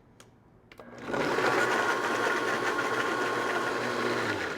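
Countertop blender starting about a second in and running steadily as it purees nectarines with vanilla, lemon juice and honey, then switching off near the end, its hum dropping as the motor spins down.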